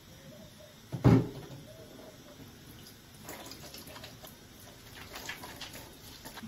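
Kitchen tap running into a stainless-steel sink while hands are rinsed and rubbed under the stream, with irregular splashing from about three seconds in. A single dull thump about a second in is the loudest sound.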